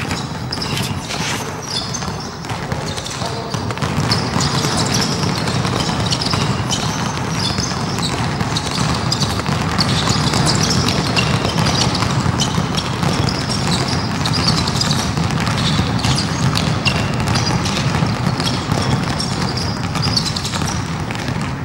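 Basketball practice on an indoor court: balls bouncing, over a steady busy din of players moving in the hall.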